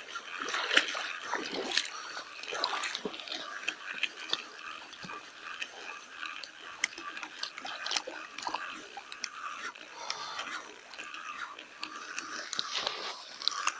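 Spinning reel being cranked to retrieve a jig, a light irregular clicking and ticking over a soft hiss.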